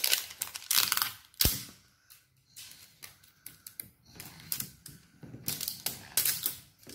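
Plastic wrapping being peeled and torn off a plastic toy surprise egg: crinkling and crackling in quick irregular bursts, with a sharp click about one and a half seconds in.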